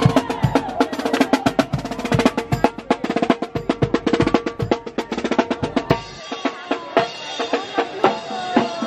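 Music with fast, busy drumming and pitched instruments over it. About six seconds in the deep drums drop away and the beat thins out.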